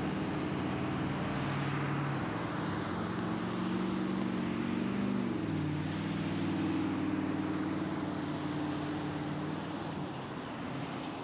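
Car driving on a city road: a steady engine hum with tyre and road noise, the engine note shifting about five seconds in.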